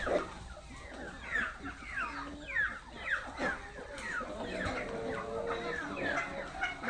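A flock of chickens calling and clucking, with many short, falling calls overlapping.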